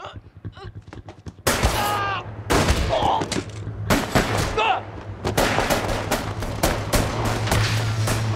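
Gunfire in a film action scene. It starts suddenly about a second and a half in, and shots follow in quick succession, coming thicker in the second half, over a low steady hum.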